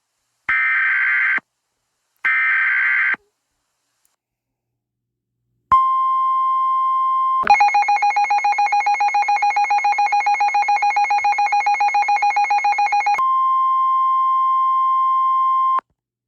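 Emergency Alert System header on NOAA Weather Radio: the last two of the three SAME digital data bursts, each about a second long, then after a pause of about two and a half seconds the steady 1050-hertz Warning Alarm Tone, lasting about ten seconds. For nearly six seconds in the middle of the tone a rapidly pulsing, warbling beep sounds over it.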